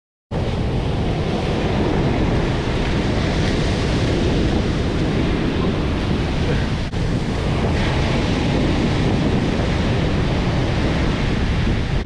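Ocean surf breaking and washing in over the sand, with wind buffeting the microphone. It comes in suddenly at the start and holds steady and loud.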